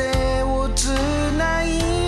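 Background music: a gliding melody over a steady bass line, with a light beat.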